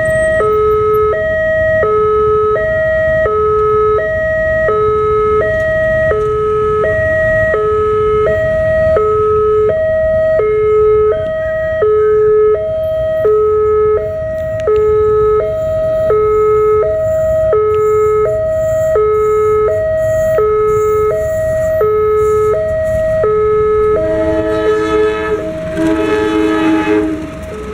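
Indonesian level-crossing warning alarm: a loud electronic two-tone signal alternating high and low, repeating steadily. About three seconds before the end, a diesel locomotive's horn sounds over it as the train arrives.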